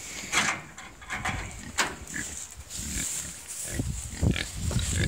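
Pigs grunting inside a livestock trailer, with a few short sharp knocks.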